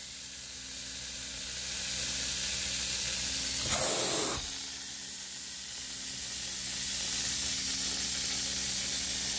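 Carpet-extraction vacuum pulling through a Water Claw tool pressed into the carpet under a person's weight: a steady high suction hiss as urine and water are drawn out of the carpet pad, with a brief louder rush about four seconds in.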